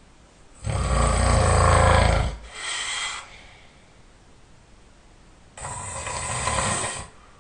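A man snoring: a long, loud snore about a second in, followed at once by a shorter, softer sound, then a second, quieter snore near the end.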